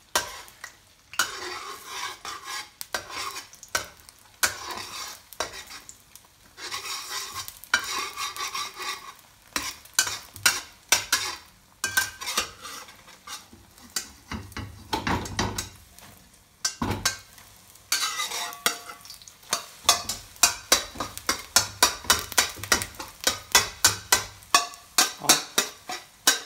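Metal spatula scraping and knocking against a wok while beaten egg fries and sizzles in oil, the strokes coming quicker and louder in the last part.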